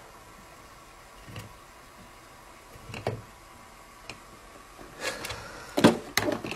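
A kitchen knife handled at a wooden knife block: a few sparse light clicks, then a quick flurry of louder knocks and clacks about five to six seconds in.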